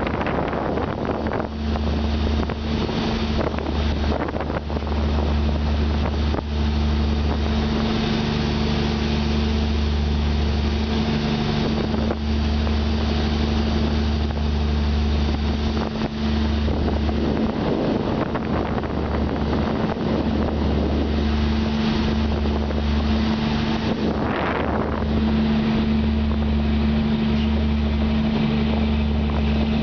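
Motorboat engine running steadily under way, a constant low drone with a steady hum, over the rush of the churning wake and wind on the microphone.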